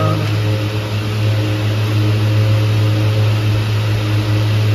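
Steady low hum, unchanging, with fainter higher tones above it.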